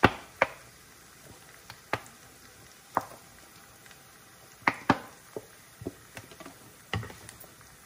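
Sharp clinks and knocks of kitchen utensils against bowls and containers while a sauce is being made, roughly one a second. The loudest comes right at the start, and a quick pair falls a little under five seconds in, followed by a few lighter taps.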